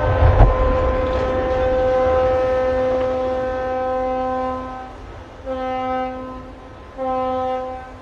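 Cargo ship's horn sounding: one long blast that ends about five seconds in, then two short blasts. About half a second in comes a deep rumbling thud as the hull of the sideways-launched ship drops into the water.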